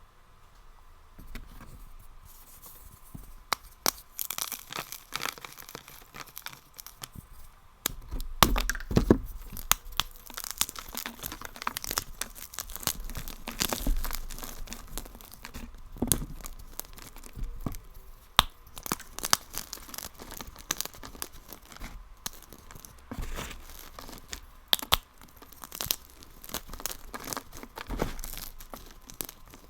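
Dense, irregular crunching and crackling of a brittle material being crushed, with many sharp cracks, some louder than the rest.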